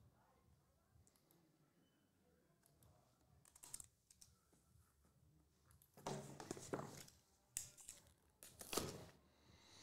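Mostly near silence with a few faint clicks, then from about six seconds in several short scratchy bursts as the plastic shrink wrap on a sealed trading-card box is slit with a small cutter and torn.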